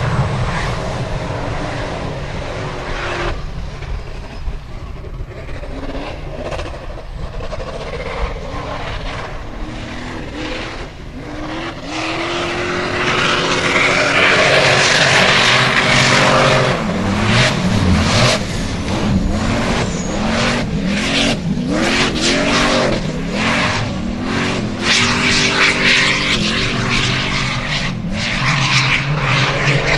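Unlimited-class Formula Offroad buggy's engine revving hard, its pitch rising and falling over and over as the throttle is blipped, with spinning tyres throwing mud and dirt. It gets louder about twelve seconds in.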